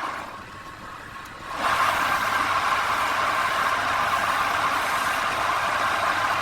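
Wood lathe running with a turning tool cutting the spinning wood: a steady scraping hiss over a low motor hum. The cut drops away just after the start and comes back loud about a second and a half in.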